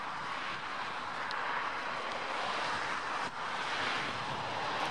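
Jet engine noise from the Airbus A350's Rolls-Royce Trent XWB turbofans as the airliner rolls along the runway: a steady rushing sound with a brief dip a little past the middle.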